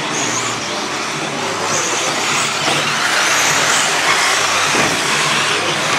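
A pack of 1/10-scale electric RC buggies racing on a clay track. There is a steady wash of tyre and drivetrain noise, and a high motor whine comes and goes as cars pass.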